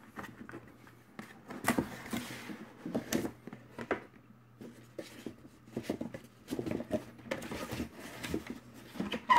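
EVGA graphics card's black inner cardboard box being opened and its packing handled by hand: irregular scrapes, taps and rustles of cardboard.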